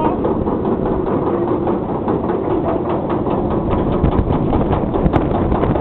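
Roller coaster train being hauled up the lift hill: a rapid, even clicking clatter from the lift chain over a low rumble.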